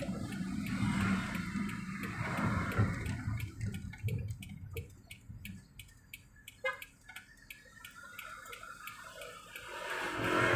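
Car cabin noise as the car slows and stops behind a truck: low engine and road rumble that fades about four seconds in, then a regular light ticking, about four a second, in the quieter stretch, and a rising rush near the end.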